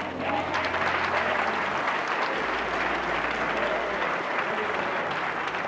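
Congregation applauding: many hands clapping together, easing off slightly near the end.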